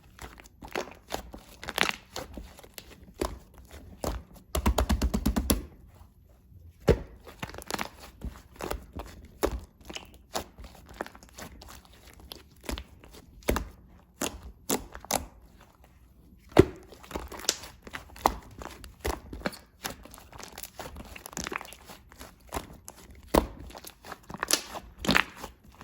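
Blue slime being squished and poked by hand, making sharp clicks and small pops, with a quick run of clicks about five seconds in.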